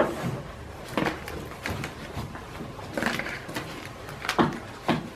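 Cardboard craft box and its paper flaps handled on a tabletop: the lid lifted off and the folded card flaps opened out flat. A sharp knock comes at the very start, then several lighter taps and rustles.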